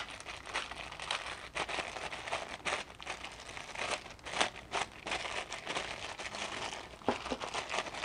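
Small clear plastic parts bag crinkling as hands open it and work the part out, a run of irregular crackles that stops near the end.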